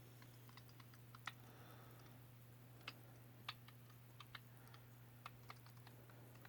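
Near silence: faint, scattered clicks and taps of plastic paint bottles and cups being handled, over a steady low hum.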